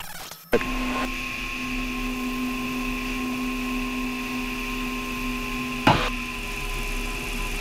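Cockpit noise of a fuel-cell-electric propeller aircraft low over the runway: a steady hum with a high whine from the electric motor and propeller, coming in abruptly about half a second in. A single sharp knock about six seconds in.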